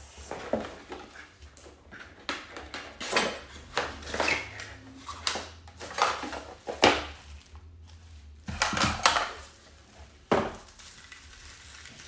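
Unpacking a keypad deadbolt lock: the cardboard box and packaging rustle and knock while the hardware clinks, in irregular handling sounds with a couple of sharper knocks about seven and ten seconds in.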